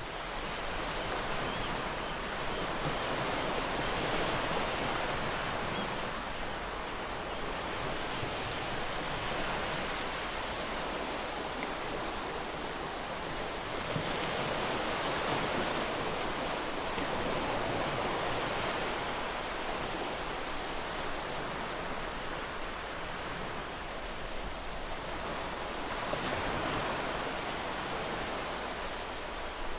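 Waterfall: falling water rushing steadily, swelling and easing gently every few seconds.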